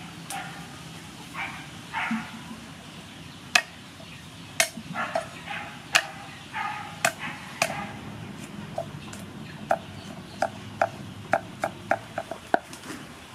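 Cleaver chopping garlic on a thick round wooden chopping board. After a few seconds come single sharp knocks about a second apart, then a quicker run of strokes, about three a second, near the end.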